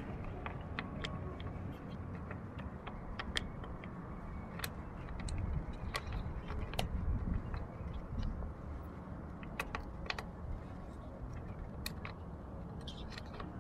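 Irregular small clicks and taps of parts being handled at a generator's plastic air filter housing, over a steady low background rumble.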